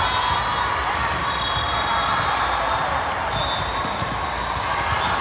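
Echoing gym crowd noise and players' voices, with a volleyball being served and then hit back and forth during a rally.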